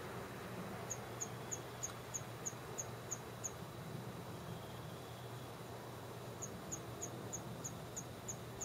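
A small animal giving short high-pitched chirps, about three a second, in two runs: one from about a second in, and another from past the middle to the end.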